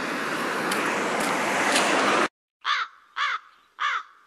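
Outdoor street noise with wind on the phone's microphone, which cuts off abruptly about two seconds in. After a moment of silence, a crow sound effect caws three times, about half a second apart.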